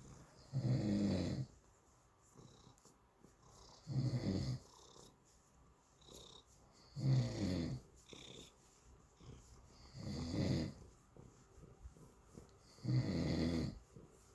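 Snoring from a sleeper: five snores about three seconds apart, each lasting under a second.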